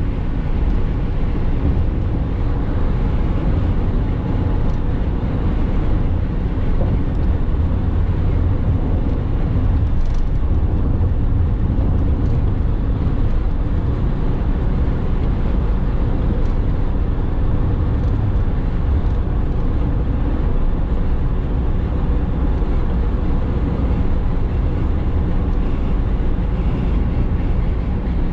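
Steady low road rumble inside a car's cabin as it cruises at highway speed.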